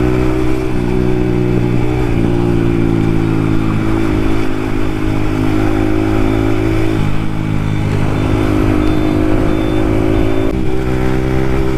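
Yamaha MT-15's 155 cc single-cylinder engine running through an Akrapovic carbon exhaust with the dB killer removed, cruising in traffic, its note stepping up and down a few times with throttle and gear changes.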